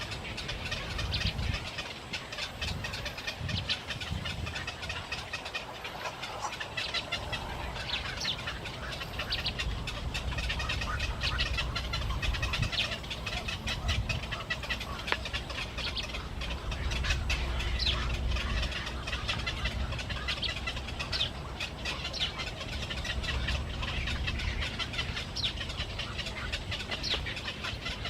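A flock of small birds chirping and calling constantly, many short overlapping calls, over a low steady rumble.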